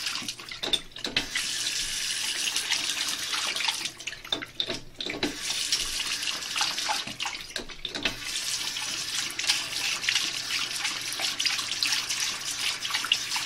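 Bathroom sink tap running, the water splashing into the basin and onto a dog's mouth as it drinks from the stream. The splashing breaks off briefly a few times.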